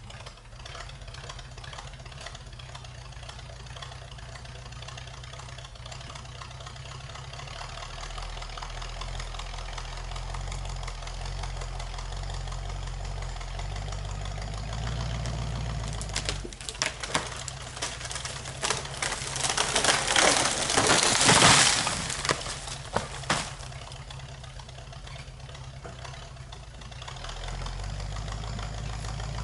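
Skidder's engine running steadily, with a loud stretch of cracking, crashing and knocking for several seconds past the middle.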